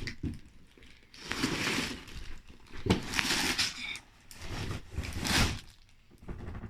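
Plastic LEGO parts bags rustling and crinkling as they are handled, in several irregular bursts with a light knock about three seconds in.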